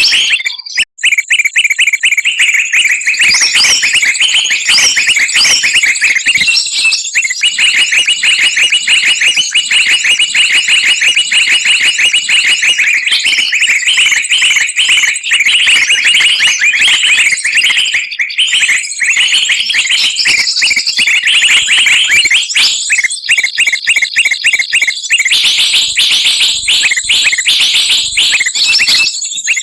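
A dense chorus of many small songbirds chirping and trilling rapidly over one another, shrill and continuous, with a brief break about a second in. It is a mixed-species bird lure call (suara pikat) played to bring wild birds down.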